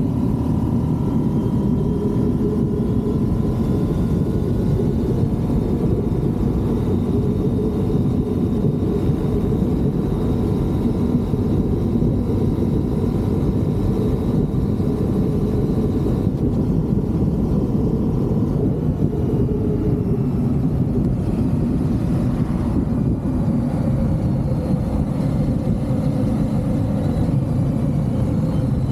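Motorcycle on the move: wind rushing over the camera's microphone, with the engine running steadily underneath.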